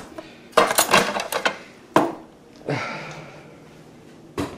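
Metal cutlery clinking and rattling in a kitchen drawer's plastic tray as it is rummaged through: a quick run of sharp clinks, another about two seconds in, a longer scrape just before the three-second mark and a single knock near the end.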